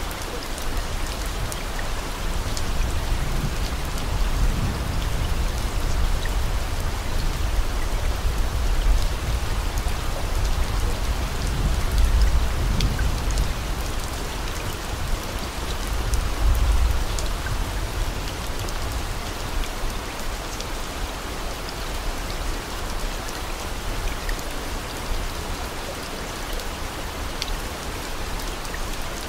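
Steady rain falling, a dense patter of drops, with low rumbling swells that rise and fade about three times.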